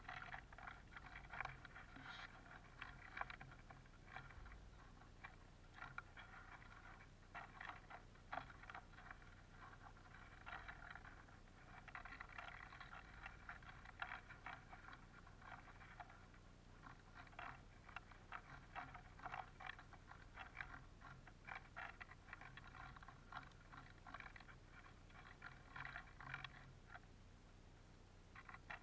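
Eurasian siskins and bullfinches pecking at and shuffling black sunflower seeds in a wooden feeder tray close to the microphone: a faint, irregular run of small clicks and rattles.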